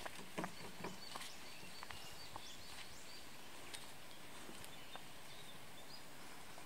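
Outdoor ambience: a steady hiss of open air with faint, short, high bird chirps scattered through. A few soft rustles and thumps come in the first second.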